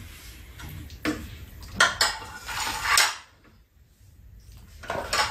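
Metal spoons clinking and scraping against bowls as rice is scooped and mixed, a few sharp clinks among them. The clatter stops for about a second and a half, just past the middle, then resumes.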